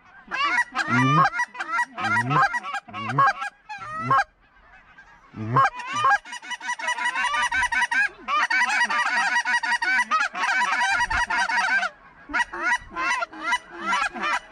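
A flock of Canada geese honking, many birds calling over one another. Loud separate honks in the first four seconds, a short lull, then a dense chorus from about six to twelve seconds in.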